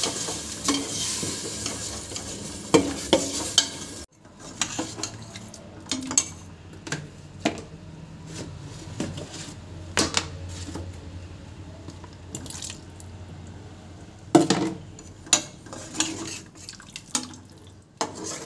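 Steel ladle stirring thick curry in a steel pot, clinking and scraping against the sides several times. A steady sizzling hiss runs under the first few seconds and cuts off abruptly about four seconds in.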